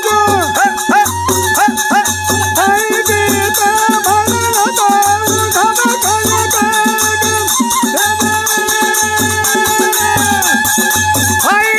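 Algoza, the paired Rajasthani double flute, playing an ornamented folk melody with quick bends between notes, over a steady dholak drum beat of low strokes and fast clacking hand percussion.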